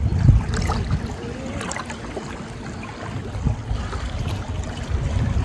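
River water sloshing and splashing irregularly as hands grope along the riverbed stones for prawns, with scattered small splashes.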